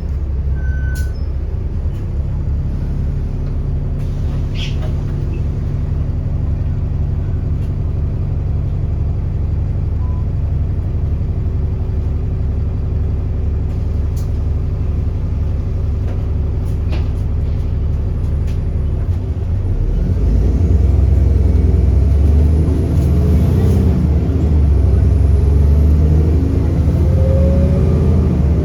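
Diesel engine of an Alexander Dennis Enviro400 bus with a Voith gearbox, heard on board, running steadily with a few sharp clicks. About two-thirds of the way in it grows louder under load as the bus pulls away, with a faint high whistle rising and falling above it.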